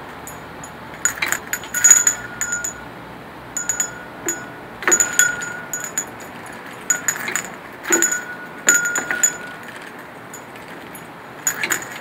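Small brass bell rung by a Moluccan cockatoo shaking it by its chain in its beak: irregular bursts of clanging rings, each about a second long, with short pauses between and a longer pause near the end.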